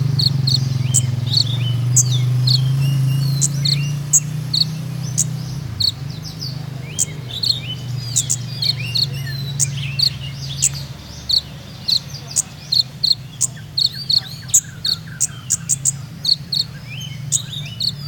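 Male Van Hasselt's sunbird (the 'kolibri ninja' of Indonesian bird-keepers) singing: a long run of short, sharp, high chirps mixed with quick twittering notes. A low steady hum sits under the first half and fades out a little past the middle.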